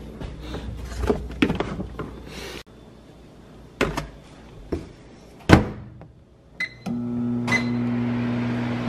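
Kitchen handling sounds: containers knocking and a door shut with a thud about five and a half seconds in. Then two keypad beeps, and a microwave oven starts running with a steady hum for the last two seconds.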